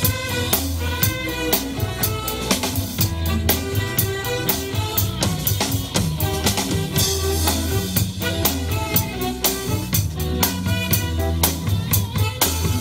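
Ludwig drum kit played live in a band, a steady beat of bass drum, snare and cymbal hits, over sustained low bass notes and short pitched instrument notes.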